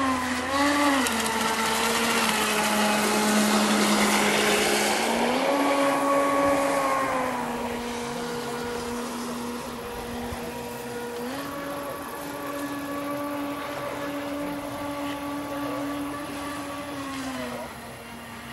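Thunder Tiger Desperado 48-inch electric RC catamaran running on the water: its brushless outboard motor gives a steady whine that shifts down and up in pitch several times, over a rushing hiss that is loudest in the first seven seconds.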